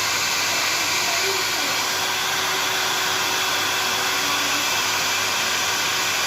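Hair dryer running steadily, blowing an even rush of air.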